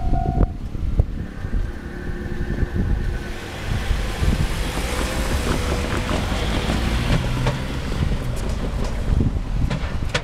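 Level-crossing warning bell ringing and stopping about half a second in. Then a vehicle passes, a swelling rush of engine and tyre noise that peaks midway, with a few sharp clicks near the end.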